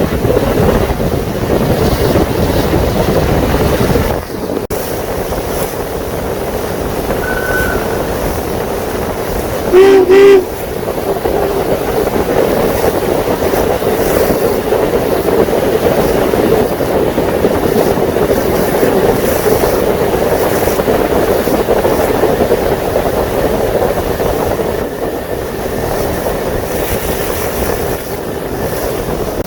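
A steady hum from the tour boat's engine, with wind buffeting the microphone in the first few seconds. About ten seconds in, a single loud, short horn blast sounds.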